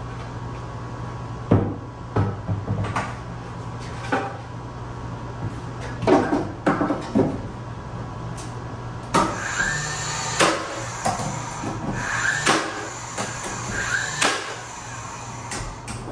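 Scattered knocks and clatters, about a dozen, irregularly spaced, over a steady low hum.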